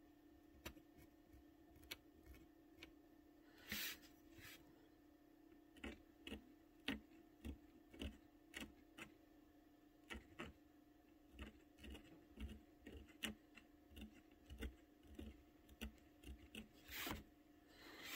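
Faint, irregular ticks and scrapes of an X-Acto knife blade tip scratching into painted watercolor paper, lifting the surface to make tiny white highlights. Two longer scrapes stand out, about four seconds in and near the end, over a steady low hum.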